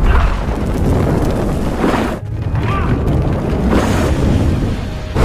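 Fight sound effects from a film: blasts of fire rushing out in a dense roar, in two long surges with a short drop about two seconds in.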